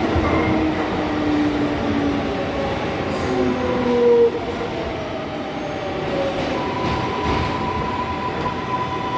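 Inside an R142A subway car: the train's electric propulsion whines in several thin tones that glide in pitch, over a steady rumble of rail and car noise. A higher tone holds steady from about two-thirds of the way in.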